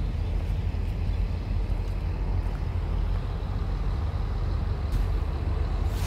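Steady low rumble of heavy vehicles' engines running and idling in a truck and bus lot.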